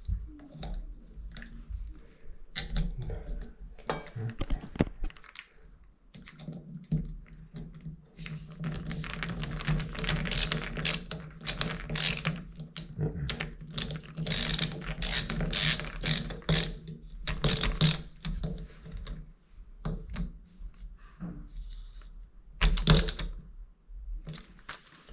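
Rapid clicks, knocks and ratcheting of tools and metal parts being worked on a shower valve during a cartridge replacement, with a steady low hum through the middle for about ten seconds.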